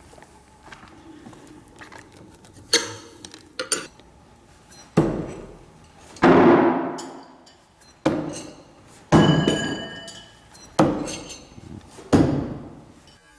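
Thrown knives hitting a wooden log-round target one after another, about seven strikes one to two seconds apart. Each is a sharp thunk that echoes off concrete walls, and some leave a brief metallic ring of the blade.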